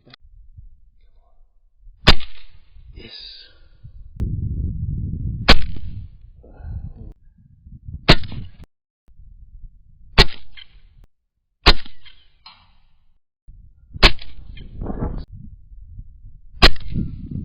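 Seven sharp .22 LR rifle shots, about two to three seconds apart, each a short crack. Low rumbling handling noise fills some of the gaps between them.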